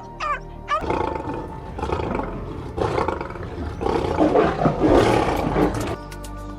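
A large animal roaring, loud and rough for about five seconds, over light background music; a few short high yips come just before it starts.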